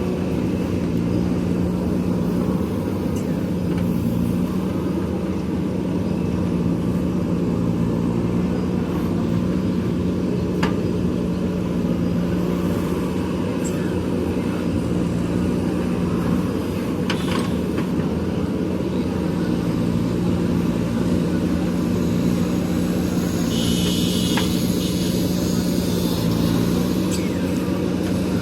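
Diesel engine of a JCB backhoe loader running steadily at an even pitch. A few sharp clanks come through, and a higher hiss rises for a few seconds near the end.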